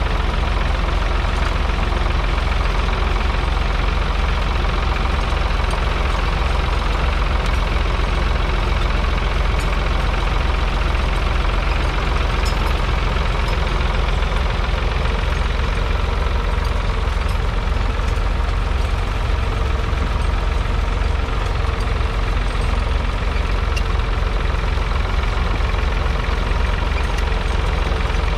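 Ford 3000's 2.9-litre three-cylinder diesel engine running steadily under load, pulling a two-furrow mounted plough through the soil.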